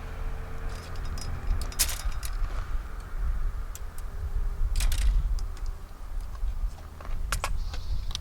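Three sharp metallic clanks roughly every two and a half to three seconds, with a few lighter clicks between, over a steady low rumble: a stainless-steel sliding-weight pile driver being slammed down to drive a peg into the ground.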